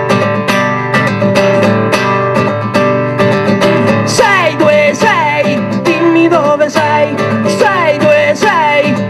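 Acoustic guitar strummed in a steady rhythm, with a man's voice singing a melody over it from about four seconds in.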